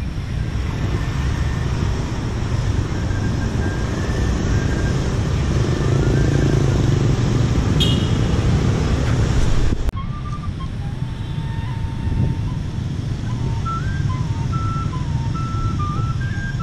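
Steady low rumble of city traffic, with faint high notes that step up and down in pitch, mostly in the second half. A short high chirp comes about eight seconds in, and the sound changes abruptly near ten seconds.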